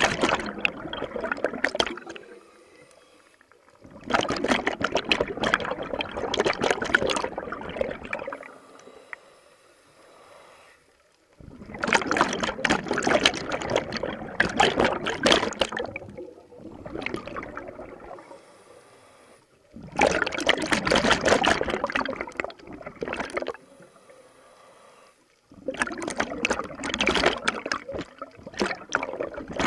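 Scuba regulator exhalations underwater: bubbles gush out in five long surges, one every seven or eight seconds, with quieter pauses between them while the diver breathes in.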